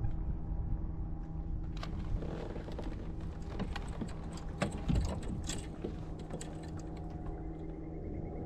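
A bass being landed at the side of a fishing kayak: a few seconds of splashes, knocks and clicks from the fish and tackle, loudest about five seconds in, over a steady low hum.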